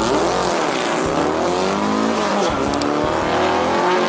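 A steady, loud spray of water with a motor whine whose pitch slowly wavers.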